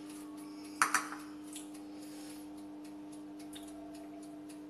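Two quick knocks about a second in, from a small bowl and a wooden cutting board being handled on a tiled kitchen counter, with a few faint taps after, over a steady low hum.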